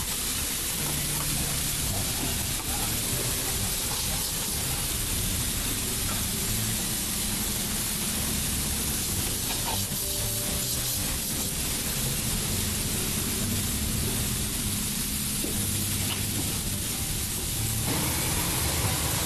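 Steady hiss of high-pressure water spray in a self-serve car wash bay, with music underneath.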